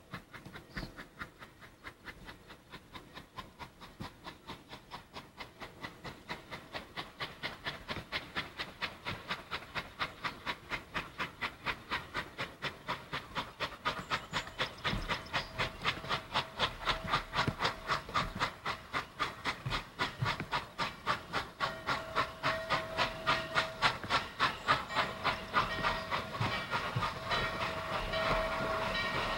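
Norfolk & Western 611, a J-class 4-8-4 steam locomotive, working toward the listener: its exhaust chuffs come in a fast, even beat and grow steadily louder as it approaches.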